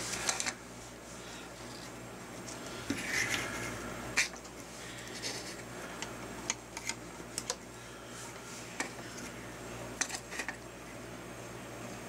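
Scattered light clicks and taps as fingers handle a small plastic battery box and its wires, over a steady low background hum.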